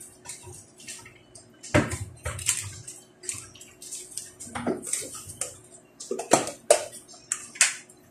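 Thick tomato-based asado sauce bubbling in a pot of simmering pork belly: irregular wet pops and plops, two or three a second, some much louder than others, over a faint steady hum.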